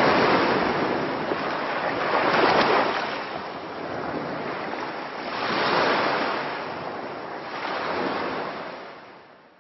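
Ocean-wave sound effect: surf swelling and washing back about three times, then fading out near the end.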